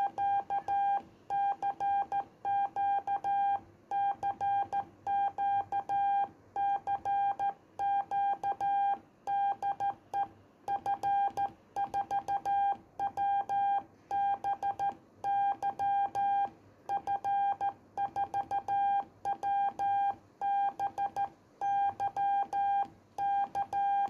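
Morse code sent by hand on a straight key through an Icom IC-251E transceiver: a single steady beep keyed on and off in dots and dashes, grouped into letters and words with short pauses between. It is a call sent in CW, Morse code on the radio.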